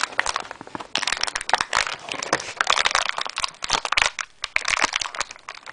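Clear plastic packaging crinkling and crackling as hands rummage in it, a dense run of quick, irregular crackles.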